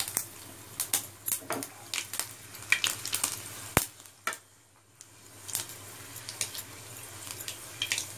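Cumin and mustard seeds, curry leaves, garlic and dried red chillies sizzling in hot oil in a non-stick pan, with irregular sharp crackles and pops: a tadka (baghar) frying. It goes quieter for about a second around the middle.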